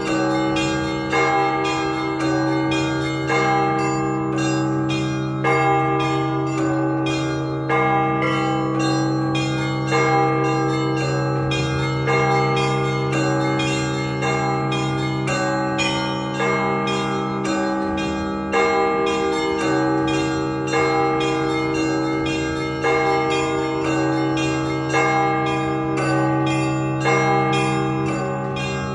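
Russian Orthodox church bells ringing for the service. A deep large bell sounds about every two seconds beneath rapid, rhythmic chiming of smaller bells.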